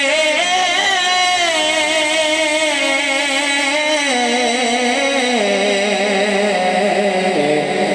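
A man singing a naat unaccompanied: one long, drawn-out melismatic note with wavering ornaments, stepping down in pitch toward the end.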